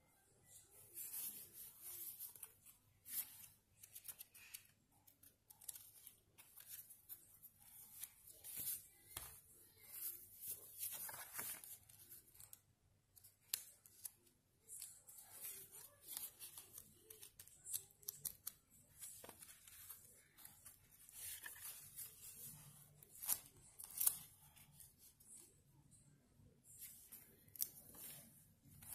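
Faint rustling and crinkling of paper being handled, with scattered small clicks and taps, as journal pages and inserts are moved about.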